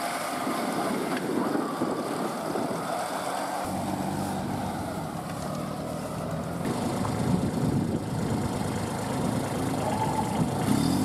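Small tractor engines running in deep mud. The sound changes abruptly about four and seven seconds in.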